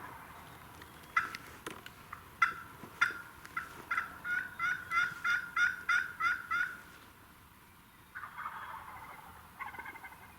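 Wild turkey calls: a long run of sharp, repeated notes that come faster and faster for about five seconds, then a shorter rattling call near the end.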